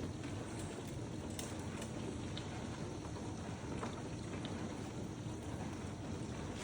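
Dishwasher running: a steady rumble of the pump with water spraying and sloshing inside, and a few faint ticks.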